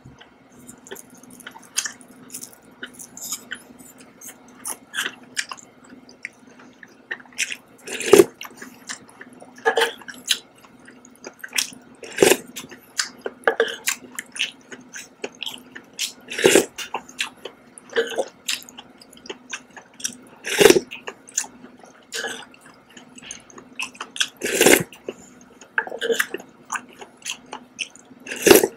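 Close-miked chewing and wet mouth sounds of a person eating seared scallops in sauce and sipping sauce from a wooden spoon. There are many small clicks, with a louder wet burst about every four seconds, over a faint steady hum.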